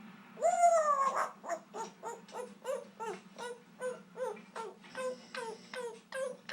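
African grey parrot singing its own made-up tune: one long drawn-out note, then a quick, even run of short falling notes, about three a second.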